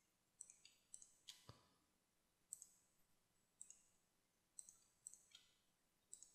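Faint clicks of a computer mouse, many in quick pairs, repeated every second or so, with one duller knock about one and a half seconds in.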